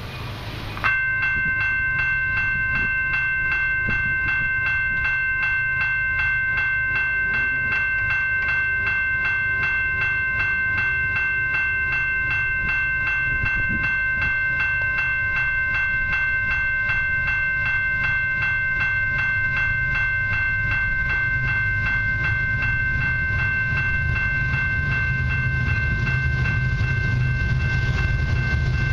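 Level-crossing warning bell starts about a second in and rings steadily with a rapid, even striking rhythm. Under it is a low rumble of the approaching freight train, growing near the end.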